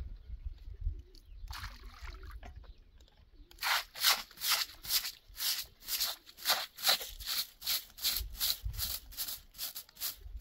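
A short straw hand broom sweeping dusty ground in quick, even strokes, about two to three a second, starting a few seconds in.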